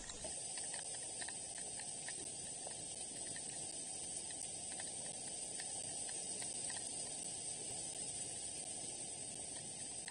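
Steady outdoor hiss from the nest camera's microphone, with a high, even whine and faint scattered ticks.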